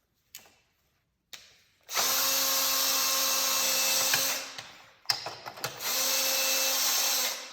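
Handheld power drill running in two steady bursts of about two seconds each, with a few clicks before and between them. It is spinning off the wheel's nuts to take the wheel off.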